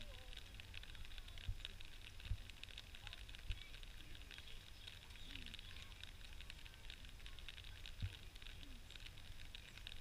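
Rural outdoor ambience: a steady high hiss with low wind rumble on the microphone, broken by four soft low thumps.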